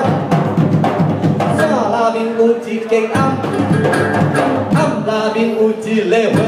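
A live band performing a Hokkien folk song: a man sings over a strummed guitar, with a hand-beaten frame drum and other drums keeping a steady beat.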